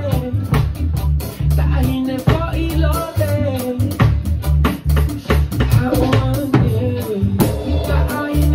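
Drum kit played along with a song: drum and cymbal hits over a steady bassline and a singing voice.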